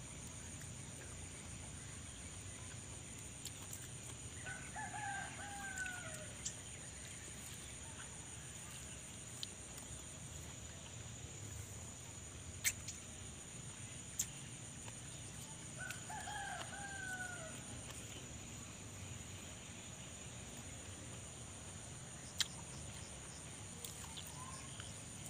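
A bird calling twice, about eleven seconds apart: each call is drawn out for a second or two and falls in pitch at the end. A steady high-pitched drone runs underneath, with a few sharp clicks.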